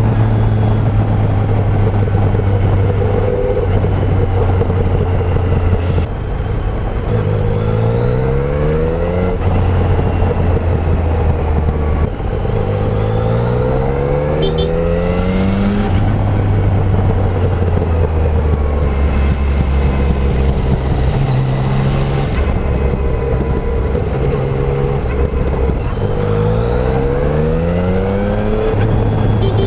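Yamaha Tracer 900's 847 cc inline-three engine through its stock exhaust, cruising steadily and then revving up hard three times as the bike accelerates, with brief dips in sound at the gear changes.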